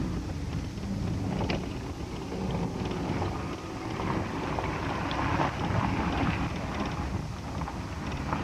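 Wind buffeting a camcorder microphone: a steady, fluctuating low rumble with a few faint clicks.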